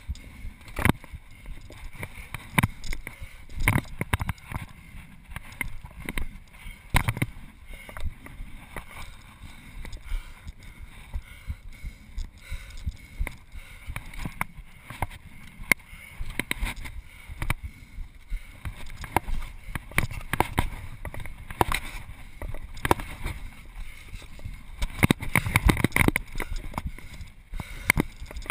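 A free-runner's footfalls, scuffs and hand contacts on roof tiles and stone, picked up close on a body-worn action camera: irregular knocks and scrapes, with a busier run of heavier knocks near the end.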